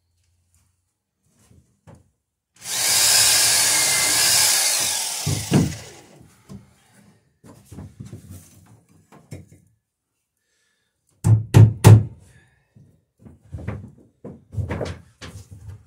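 A loud hiss lasting about three seconds, then three sharp hammer blows in quick succession driving a nail into the dory's wooden rail, followed by lighter knocks on the wood.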